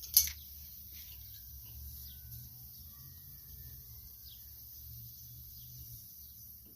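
One sharp metallic click just after the start as pliers grip and pull a nail from the riding mower's tire tread, followed by a steady low hum with a few faint, short bird chirps.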